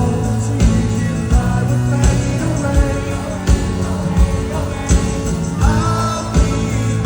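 Live rock band playing a mid-tempo song, with a steady kick drum about every three-quarters of a second under guitars and singing.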